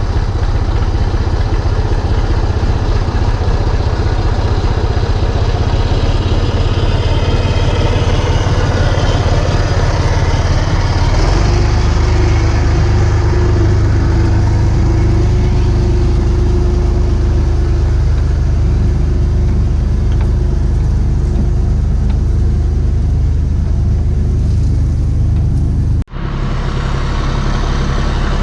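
Massey Ferguson 254 S tractor engine running steadily while pulling a hay wagon, heard up close; it grows deeper and louder about eleven seconds in. The sound cuts out for an instant near the end, then the engine carries on.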